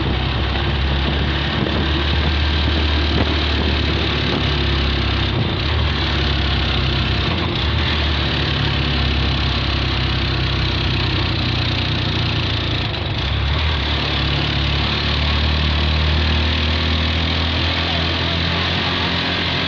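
An engine running steadily: a low, even hum under a broad hiss.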